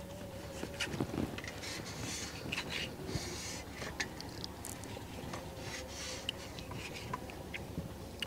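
Kitchen knife slicing scoring cuts into a whole raw chicken on a steel plate: soft scraping strokes of the blade through the skin and flesh, with small scattered clicks.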